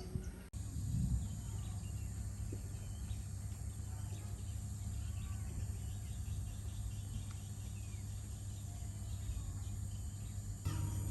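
Low, steady hum with faint background noise and a few faint chirps.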